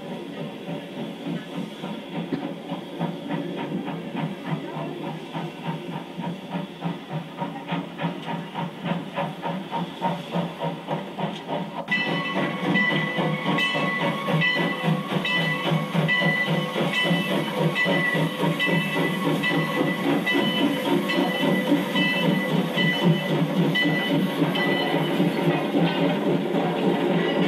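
Steam locomotive CPR 2024, a 4-4-0, working past with its coaches: rhythmic chuffing and hissing of steam, about two to three beats a second, growing louder as it nears. From about twelve seconds in it gets louder still, with a steady ringing tone over the chuffing.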